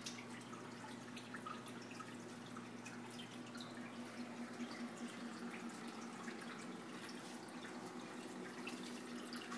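Faint trickling, dripping and bubbling of aquarium water over a steady low hum, typical of a running aquarium filter.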